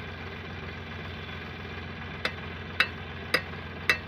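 Tractor diesel engine idling steadily. From about halfway in, four sharp knocks come at even intervals of about half a second, louder than the engine.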